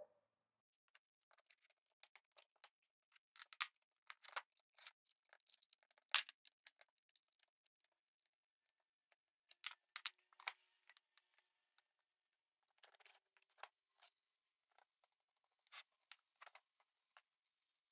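Faint, scattered clicks, taps and light scrapes of hands assembling a plywood router lift: wooden and metal parts knocked together and fitted onto steel guide rods. The sharpest tap comes about six seconds in.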